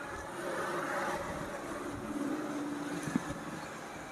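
A vehicle engine hums, with a few wavering tones over steady road noise, and a short knock about three seconds in.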